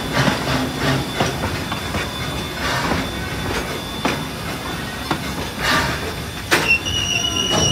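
Park railroad steam train running, heard from just behind the locomotive: a steady rumble with irregular clacks of the wheels over the rail joints. Near the end comes a sharp click, then a thin high-pitched wheel squeal.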